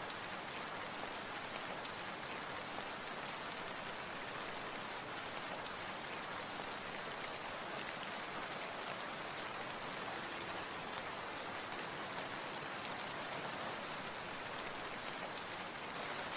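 Steady rain falling, an even hiss of water that holds constant throughout.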